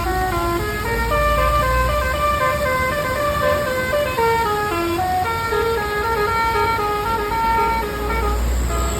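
Indonesian bus 'basuri' (telolet) musical air horn playing a fast melody of short notes that step up and down in pitch, with a low engine rumble underneath.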